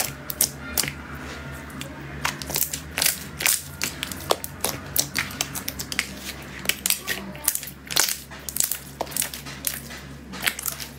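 Hands squeezing, kneading and stretching a large glossy metallic slime, giving rapid, irregular sticky clicks and pops.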